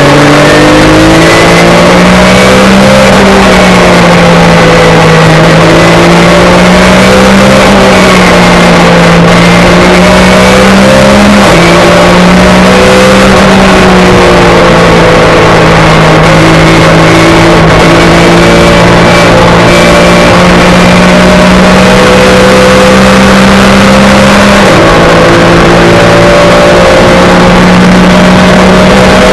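Porsche 911 GT3 Cup race car's flat-six engine heard from inside the cabin, very loud, under racing load, its pitch swelling and easing through the corners. The pitch steps down abruptly twice at upshifts, about a third of the way in and again near the end.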